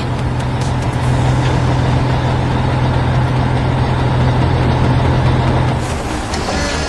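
Heavy construction machine engine running steadily with a deep rumbling hum, a sound effect that fades out about six seconds in.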